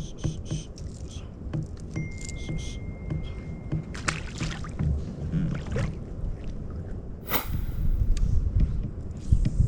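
Insects chirping in short repeated pulses over a steady low rumble, with one sharp rushing noise about seven seconds in.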